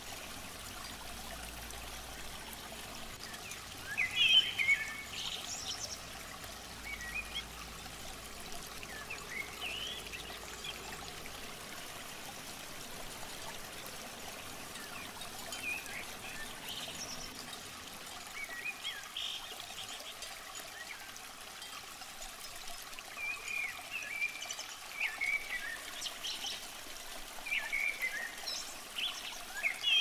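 Small birds chirping in short runs of calls, a loud cluster about four seconds in and more toward the end, over a steady hiss of water trickling in a concrete irrigation ditch.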